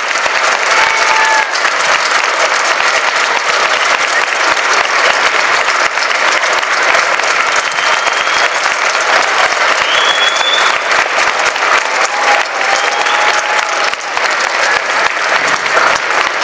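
Long, steady applause from a large crowd, many of them children, clapping their hands.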